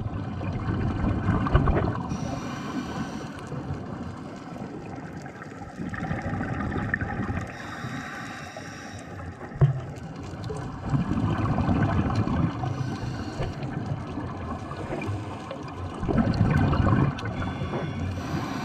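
Scuba diver breathing through a regulator underwater: the low bubbling rumble of each exhalation alternates with the hiss of the regulator on each inhalation, four breaths about five seconds apart.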